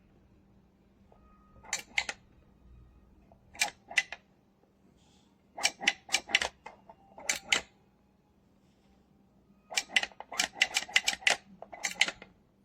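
Sharp clicks in short, quick runs of two to a dozen, separated by pauses of a second or two, with the longest run near the end. A faint steady hum sits underneath.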